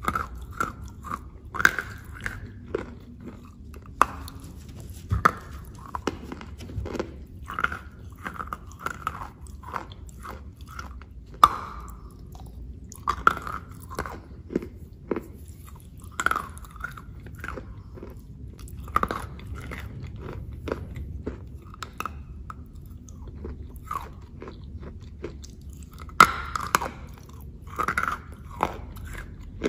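Close-miked chewing and biting of a pastry in chocolate paste: an irregular run of crunchy bites and sharp crackles, with a few louder bites.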